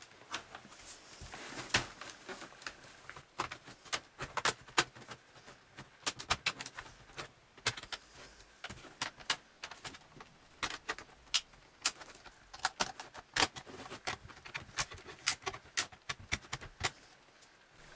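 A plastic card worked along the seam of a laptop's thin plastic case to pry it open: a long run of irregular sharp clicks and snaps as the plastic flexes and gives.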